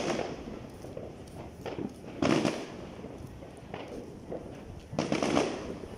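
Three sharp bangs with echoing tails: one at the start, one a little after two seconds in, and one about five seconds in, with fainter pops between them.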